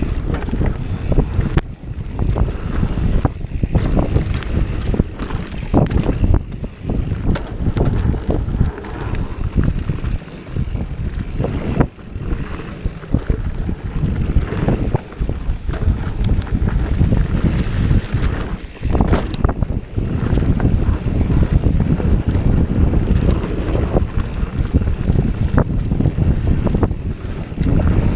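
Santa Cruz Hightower 27+ mountain bike descending a hard-pack dirt trail at speed. Wind rushes over the camera microphone, with a constant low rumble and frequent short knocks and rattles as the bike goes over bumps.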